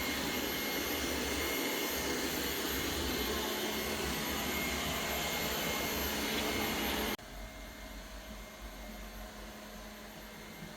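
Lefant M201 robot vacuum running with a steady noise that cuts off abruptly about seven seconds in, leaving only a faint low hum.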